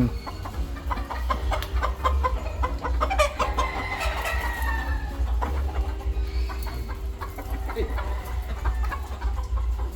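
Chickens clucking, with a steady low rumble underneath.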